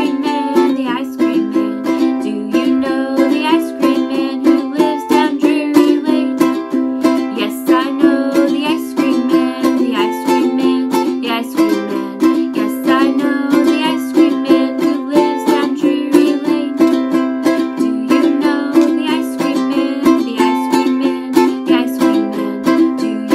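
Ukulele strummed in a steady rhythm, playing chords to a nursery-rhyme song.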